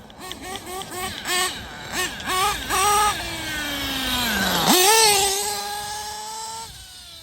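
Small nitro engine of a Kyosho Inferno NEO ST 3.0 RC car revving in a quick series of short throttle blips. Its pitch then falls slowly for over a second, jumps sharply back up and holds at a high whine for about two seconds before cutting off near the end.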